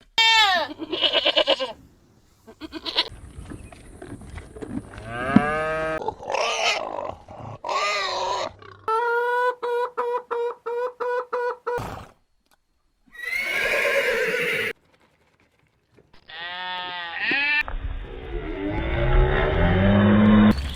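A string of different farm animal calls, cut one after another with sudden starts and stops. It includes a run of quickly repeated calls in the middle and a low, drawn-out call near the end.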